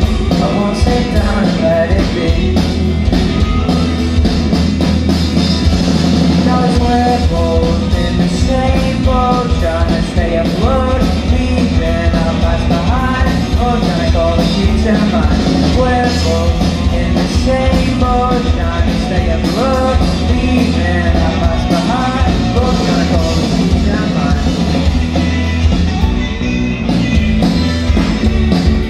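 Live rock band playing loud through a venue PA: electric guitars, bass guitar and drum kit, with a lead singer's vocal over them, heard from within the audience.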